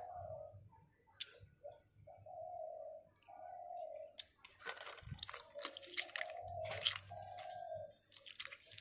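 Boiled pond snails' shells clicking and clattering against one another as they are handled by hand, with sharp clinks on a stainless-steel bowl; one clink near the end rings briefly. A bird coos in short repeated phrases in the background.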